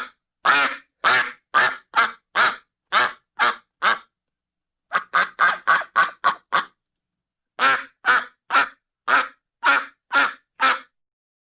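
Duck quacking in three runs of short, rapid quacks, about two a second, with a second or so of silence between runs.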